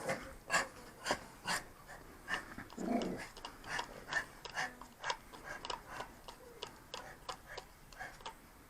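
Resin and hardener being stirred together in a small container: a run of light, irregular clicks and scrapes that thin out toward the end.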